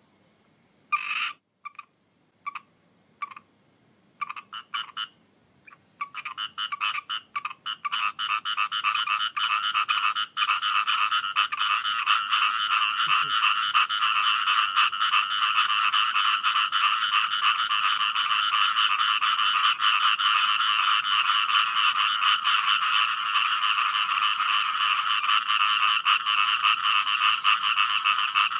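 Frogs croaking: at first separate short calls with gaps between them, then about six seconds in the calls crowd together into a dense, unbroken chorus.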